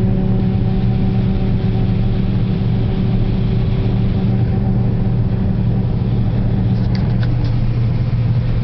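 Vehicle engine running steadily at a constant pitch, a loud, even hum heard from inside the moving vehicle, with a few faint clicks about seven seconds in.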